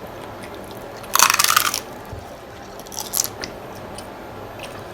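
Crunchy bite into a taco, a loud dense crackle lasting under a second about a second in, followed by a shorter, softer crunch of chewing near three seconds.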